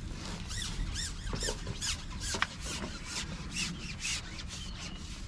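Fishing pole rubbing and squeaking as it is slid and handled, a string of short squeaks about two a second.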